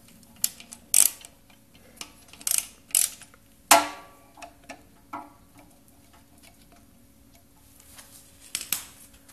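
Irregular metallic clicks and clinks of hand tools working the 4 mm Allen set screw out of the pump shaft, the loudest clink with a short ring a little under four seconds in.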